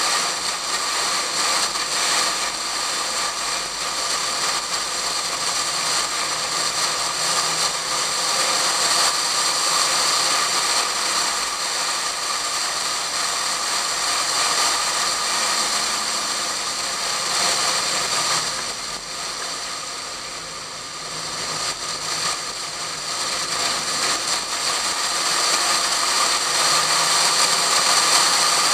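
Wind rushing over a hood-mounted camera in a waterproof case as a Pontiac Fiero laps at track speed, with the car's engine running under it. The noise dips for a few seconds about two-thirds of the way through, then builds again.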